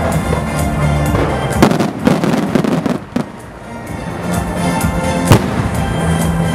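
Fireworks going off over music: a fast cluster of crackling pops about two seconds in, then one sharp bang about five seconds in.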